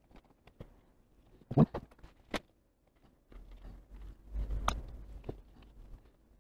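Hand tool working rusted cable-grip screws out of an old soldering gun's plastic handle: small scattered clicks and scrapes, with a louder knock about one and a half seconds in and sharp clicks near two and a half and nearly five seconds in.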